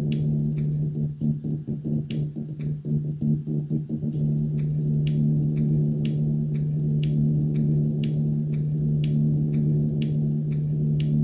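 Synthesized electronic sound: a steady low drone with a short high tick about once a second, like a clock. Between about one and four seconds in, the drone stutters in quick choppy pulses.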